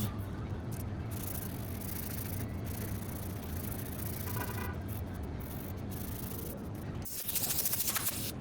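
Sandpaper rubbing over body filler on a car body panel, with a louder stretch of quick strokes near the end.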